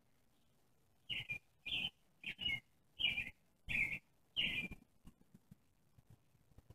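A kitten mewing: six short, high-pitched mews in a quick, even series, about two a second.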